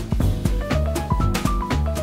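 Background music: a drum kit keeps a steady beat under bass notes and a melody that steps upward in pitch.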